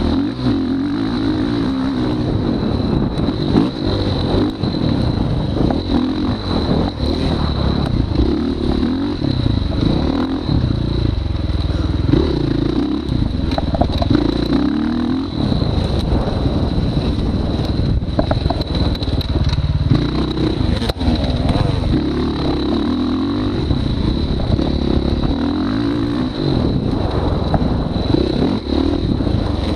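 Motorcycle engine on a short dirt track, heard from the rider's chest, its revs rising and falling over and over as the rider works the throttle through the laps.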